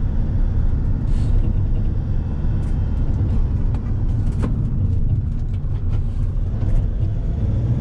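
Steady low rumble of a 3.5-tonne delivery van on the road: engine and road noise.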